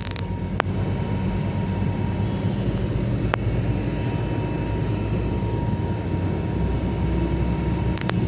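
Steady low rumble of a moving bus's engine and road noise heard inside the passenger cabin, with a faint steady whine and a few light clicks.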